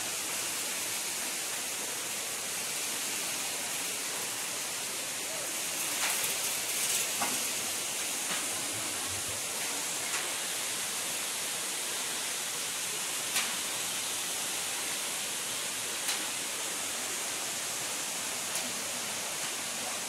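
Steady rushing hiss of a waterfall, with a brief rustle about six seconds in and a few light clicks.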